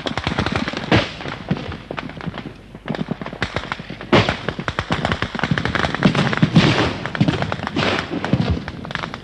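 Battle gunfire: many sharp shots cracking in quick, irregular succession, with a few louder bangs about a second in and about four seconds in.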